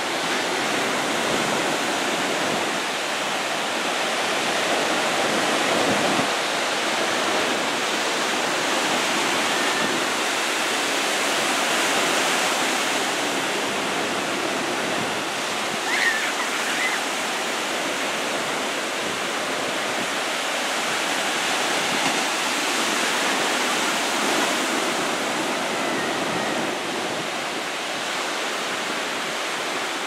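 Ocean surf breaking and washing on the shore: a steady rushing wash that swells and eases slowly, with a brief high chirp about halfway through.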